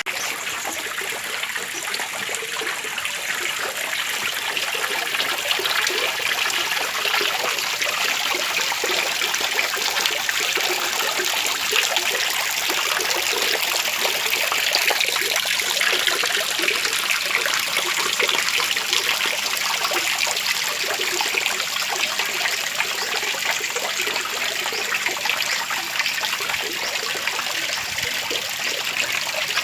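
Water trickling and splashing steadily from a small waterfall, an even, unbroken gurgle.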